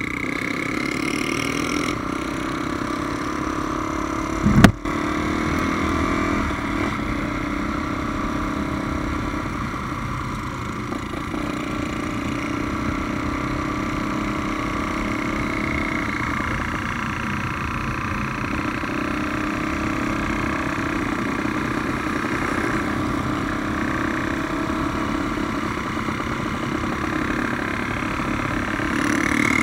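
Honda Tornado motorcycle's single-cylinder four-stroke engine, built up to 350cc, running steadily on the move, its pitch slowly rising and falling with the throttle. There is one sharp knock about five seconds in.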